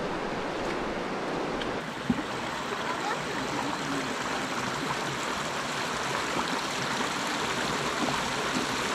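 Creek water rushing steadily, an even wash of flowing water, with one brief knock about two seconds in.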